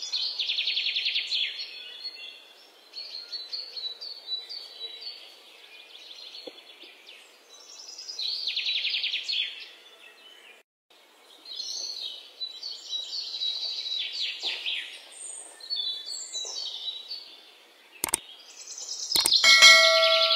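Birds singing and chirping, with rapid trills coming in bursts every few seconds. Near the end, a sharp click and then a ringing ding of several tones.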